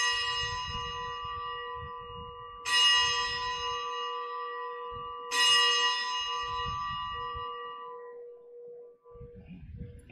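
A bell struck three times, evenly spaced, each stroke ringing on and fading slowly with a lingering lower tone; it marks the elevation of the chalice at the consecration of the Mass.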